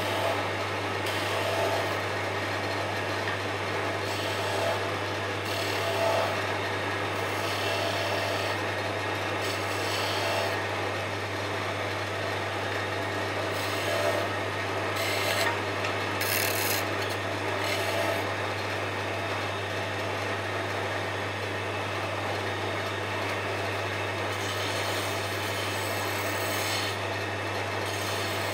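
Wood lathe running with a steady low hum while a pointed turning tool is pressed into the spinning wooden cylinder in short cuts, scraping as it cuts thin ring grooves.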